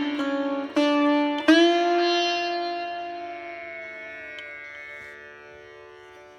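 Background music on a plucked string instrument in an Indian classical style. A few notes are struck, one sliding up in pitch about a second and a half in, then a long note fades away slowly.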